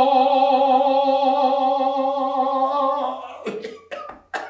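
A man's voice holding one long sung note with vibrato in mock-opera style, an opera-singer warm-up on the L sound, ending about three seconds in. A few short vocal sounds follow near the end.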